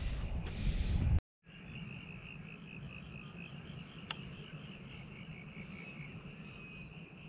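Wind and water noise for about a second, which cuts off abruptly. Then frogs call steadily in a high, evenly pulsing chorus, with a single sharp click about four seconds in.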